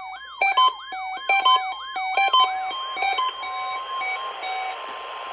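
Electronic alert from a weather radio receiver: a warbling siren-like pattern of rising-and-falling sweeps and alternating beeps, about three a second. About halfway through the sweeps fade out into radio static, and a steady beep tone holds on to the end.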